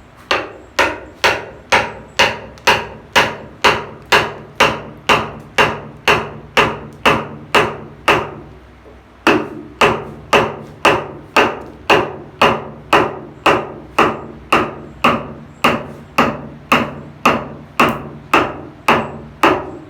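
Steady hammering on wood, about two blows a second, each with a short ring. There is a brief pause about halfway through before the blows resume.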